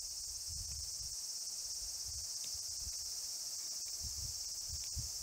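A chorus of insects with a steady, unbroken high-pitched drone, over a low rumble of wind on the microphone.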